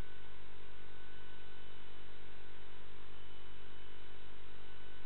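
Steady electrical hum and hiss from a CCTV recording's audio channel: several fixed low hum tones and a thin high tone over an even hiss, unchanging throughout.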